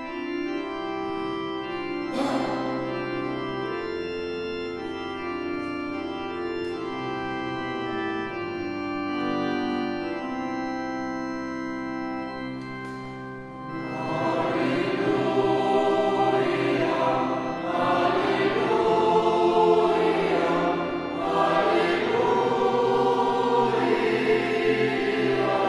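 Organ playing slow, sustained chords. About halfway through, a choir comes in singing a hymn over the organ, and the music grows louder.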